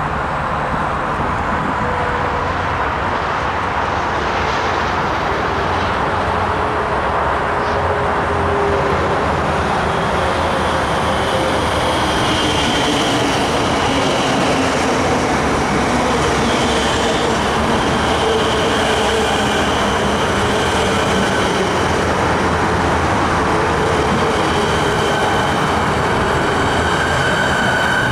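Siemens Nexas electric suburban train running past close by: a steady loud rumble of wheels on rails, with thin steady whining tones above it.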